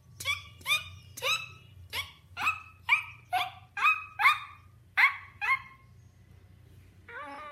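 A dog barking in a quick run of about eleven sharp barks. Near the end comes a short wavering cry.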